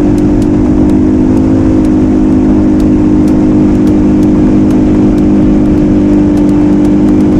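Bass boat's outboard motor running steadily at cruising speed while the boat is underway.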